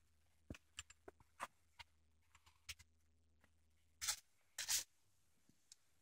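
Footsteps and trekking-pole taps on a wooden boardwalk: scattered light clicks, then two louder scuffs about four seconds in.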